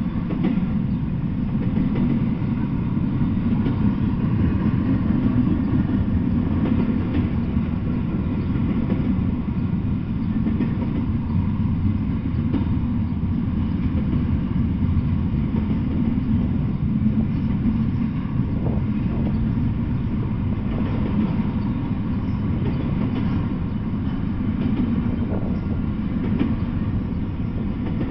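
Double-stack intermodal freight train rolling past, its well cars making a steady low rumble of steel wheels on the rails.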